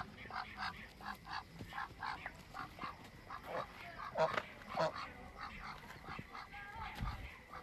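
Duck giving a quick run of short quacks, about three or four a second, with a few louder calls a little past halfway.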